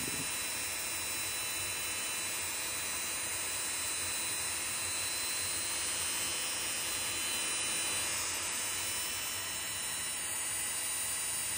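Dremel rotary tool motor running steadily at high speed: a constant high whine over an even hiss.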